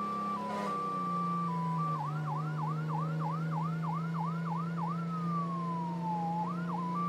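Electronic siren sound effect. It starts as a hi-lo two-tone, switches about two seconds in to a quick yelp of roughly three sweeps a second, then falls in one long glide, gives one last yelp, and returns to the hi-lo near the end. A steady low drone runs underneath.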